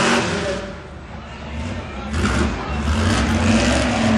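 Mega truck's engine revving hard during freestyle in a dirt arena, its tyres throwing dirt. The engine note drops off about a second in, then builds back up and holds steady.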